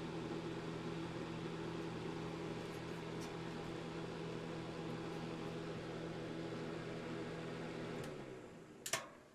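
Pelonis electric space heater's fan running with a steady hum, then switched off about eight seconds in and spinning down. A sharp click comes near the end.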